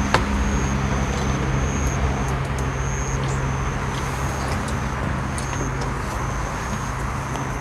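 Steady low mechanical hum and rumble of a night-time outdoor background, with a thin, high-pitched insect trill that breaks off and resumes every second or so, and a few faint clicks.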